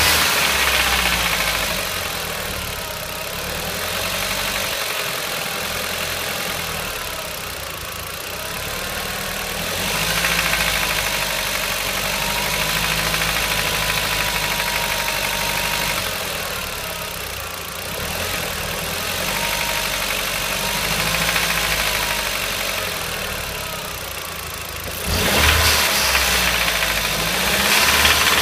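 Audi TT 225's 1.8-litre turbocharged four-cylinder engine running with a strange ticking noise. Its level rises and falls a few times and steps up sharply about 25 seconds in.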